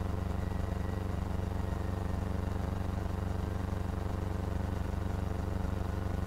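Cessna 172's piston engine droning steadily at reduced power, throttled back for the landing flare.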